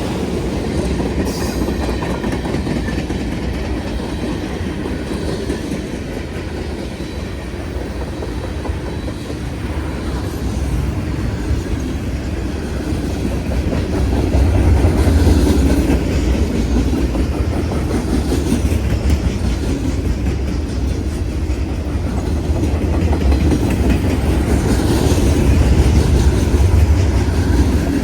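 Norfolk Southern freight train cars rolling past at close range, the wheels clattering over the rails with a continuous rumble that swells louder twice.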